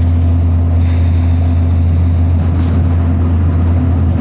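Steady low drone of a car heard from inside the cabin.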